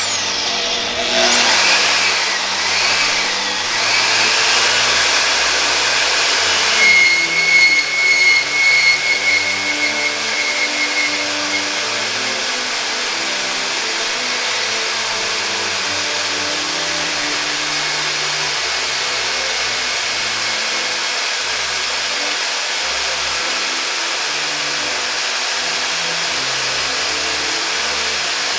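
Portable band saw running steadily as its blade cuts through a cold-air intake pipe. A few seconds in, a high ringing tone joins the cutting noise for several seconds, then the saw runs on evenly.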